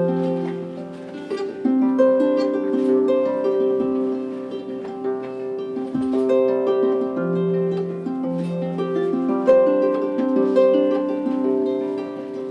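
Instrumental music: a plucked-string instrument playing a picked melody over sustained chord notes, with no singing.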